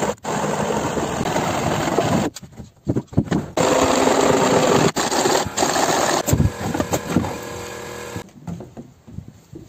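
A handheld power tool runs against the wooden wall framing in several long bursts with short breaks, and the noise drops lower near the end.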